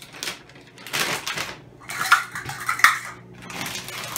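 Plastic bag of almond flour crinkling and rustling as a plastic measuring cup scoops from it, with sharp clinks and knocks against kitchenware, loudest about two and three seconds in. A faint low steady hum runs underneath.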